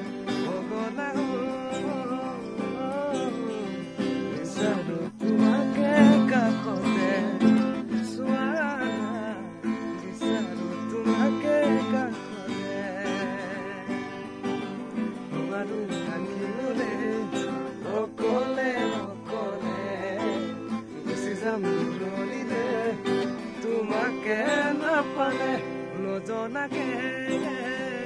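Acoustic guitar strummed, with a man singing a song along with it.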